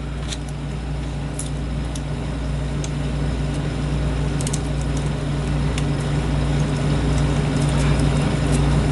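Steady mechanical hum that grows gradually louder, with a few sharp, light metallic clicks from small lock-cylinder parts being handled.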